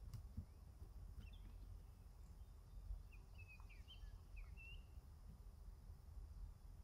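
Faint outdoor ambience: a few short, high bird chirps, clustered about three to five seconds in, over a low steady rumble.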